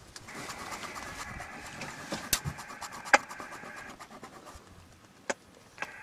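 Radio transceiver's speaker hissing with static, switching on just after the start, cutting out about four seconds in and coming back near the end, with several sharp clicks as its controls are worked.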